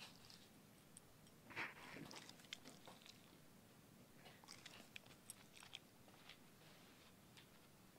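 Near silence in a quiet room, broken by a few faint, irregular small clicks and crunches.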